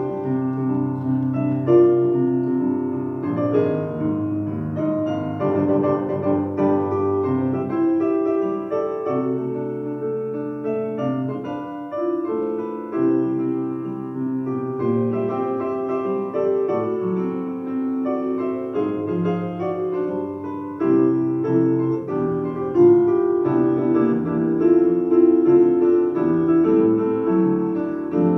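Piano playing a slow piece, with notes and chords held and changing steadily.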